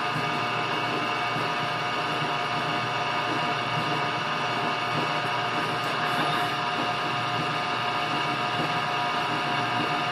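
Desktop CNC router running, its spindle motor spinning steadily while the stepper motors move the gantry: a steady machine whine made of several held tones.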